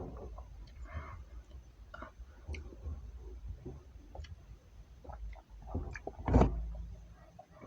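Scattered short clicks and knocks, with one much louder knock about six seconds in.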